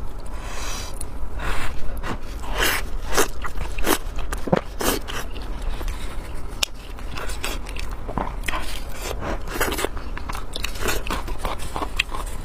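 Close-miked eating sounds: a person biting and chewing food in a run of irregular, wet bites and chews.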